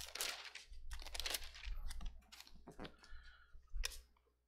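Bible pages rustling and being turned, a soft, irregular papery crackle with small clicks. A single sharper knock comes near the end.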